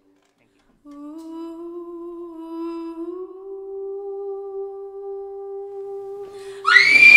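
A voice humming one long held note that steps slightly higher about three seconds in. Near the end, a sudden loud, high-pitched vocal cry breaks in over it.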